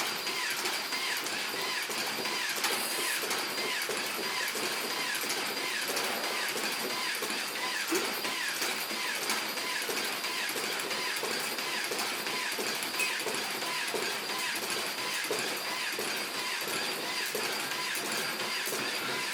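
A small mechanical device running steadily, with rapid clicking and ratcheting and a constant high whine.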